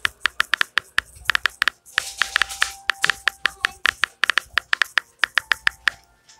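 Rapid taps on a smartphone's on-screen keyboard while typing a message, several clicks a second with short pauses. A brief hiss comes about two seconds in.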